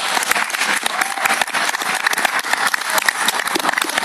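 Crowd applauding, dense and steady clapping with a voice or two calling out.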